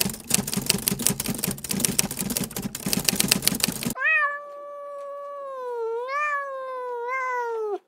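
Rapid keyboard typing clicks for about four seconds, then a cat's single long drawn-out meow that rises and falls in pitch and cuts off suddenly.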